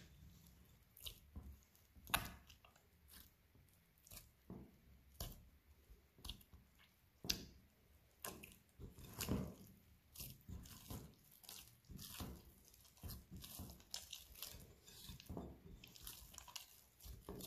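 Hands kneading soft bread dough in a glass bowl, working freshly poured olive oil into it: faint, irregular wet squelches and squishes, the sharpest about two seconds in and around nine seconds in.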